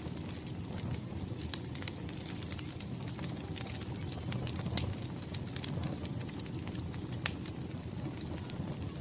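Wood fire crackling, with irregular sharp pops, the loudest about seven seconds in, over a steady low rumble.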